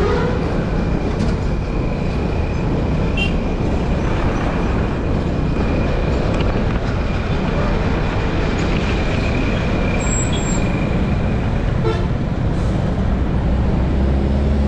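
Riding noise from a Vespa scooter moving through town traffic: a steady rush of wind and engine on the camera microphone, with a thin high whine over roughly the first nine seconds.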